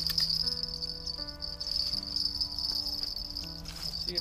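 A steady high-pitched insect-like trilling, with soft held chords underneath that change to new notes every second or so.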